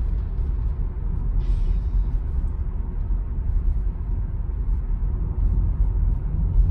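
Steady low road and tyre rumble heard inside the cabin of a Tesla electric car driving through a tunnel.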